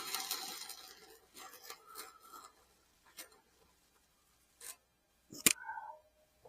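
An electric welding arc crackles as a small tack weld is laid, dying away over the first second or so. Scattered small clicks follow, then a single sharp metallic clink with a brief ring near the end.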